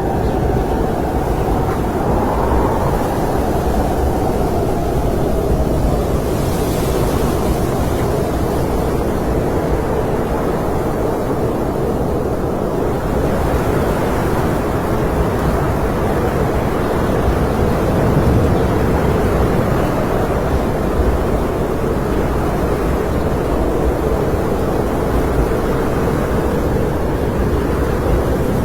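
Snowstorm wind blowing steadily, a deep rushing noise with a faint howling tone that wavers in pitch in the first few seconds.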